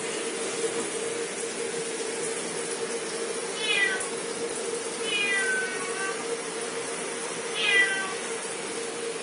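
A domestic cat meowing three times, each call falling in pitch, the middle one the longest, over a steady low hum.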